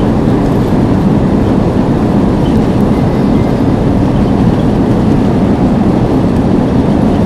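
Loud, steady rumble inside an airliner's cabin during the landing rollout just after touchdown: the wheels running on the runway together with the engines as the aircraft slows.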